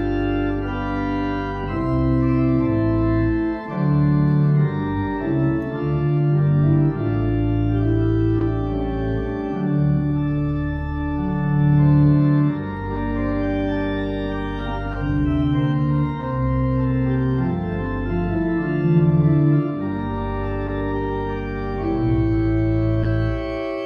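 Church pipe organ playing a piece in sustained, full chords over a bass line, the chords changing every second or so.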